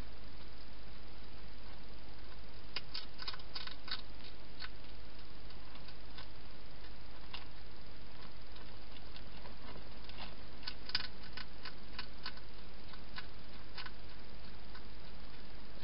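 Wild hedgehog eating at a food bowl: bursts of small, irregular crunching clicks, one cluster about three seconds in and another from about ten to fourteen seconds, over a steady hiss.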